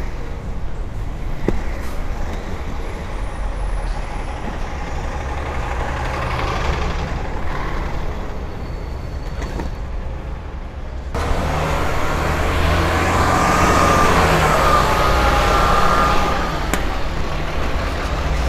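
Street traffic heard while rolling on inline skates, with a steady low rumble. About eleven seconds in it abruptly turns louder as a heavy road vehicle runs close by with a wavering whine.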